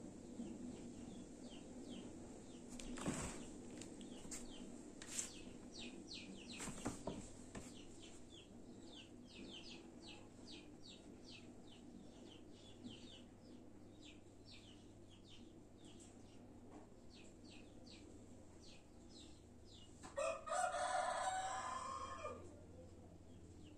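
A rooster crows once near the end, a single call of about two seconds that drops off at its close, over a string of short, high chirps from small birds repeating a few times a second and a few sharp knocks.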